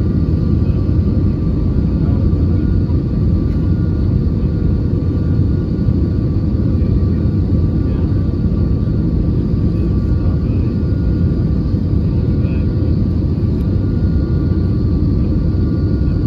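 Airbus A320 cabin noise heard from a window seat over the wing during descent: a steady low rumble of airflow and engines, with a few faint whines above it.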